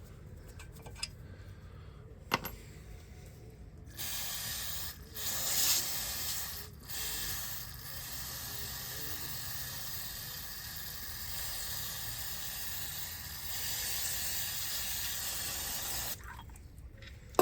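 Aerosol brake cleaner spraying in a long hissing jet, broken twice briefly soon after it starts, to wash brake parts clean.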